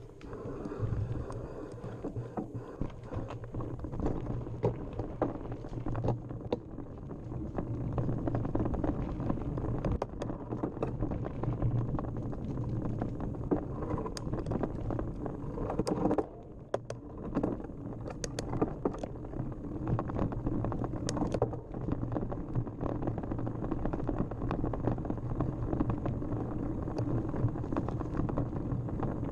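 Mountain bike descending a dirt trail: a steady rumble of tyres and wind on the microphone, with frequent clicks and rattles as the bike jolts over bumps, busiest around the middle.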